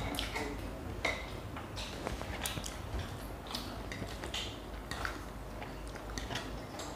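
Metal forks clicking and scraping against stainless steel plates as noodles and pasta are picked up, in scattered irregular clicks over a low steady hum.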